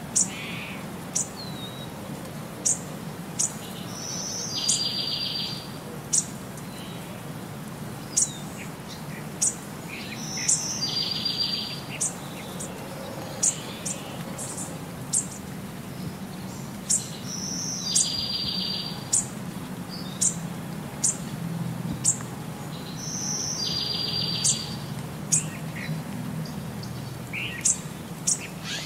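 Birdsong: short, high chirps about once a second, with a buzzy trill that comes back at even spacing about every six and a half seconds, as in a looped recording.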